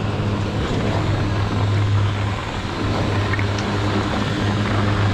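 Chairlift terminal machinery running with a steady low hum, over a continuous rough noise.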